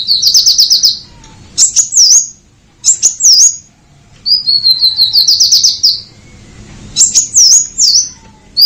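Purple-throated sunbird singing: quick, high trills of rapidly repeated sharp notes, rising slightly in pitch, alternating with short sharp notes that swoop down and back up. One trill comes at the start and a longer one about four and a half seconds in.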